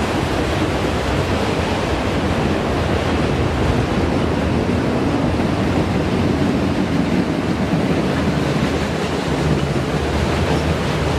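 Freight train of autorack cars rolling past: a steady rush of steel wheels on rail, with no locomotive engine or horn heard.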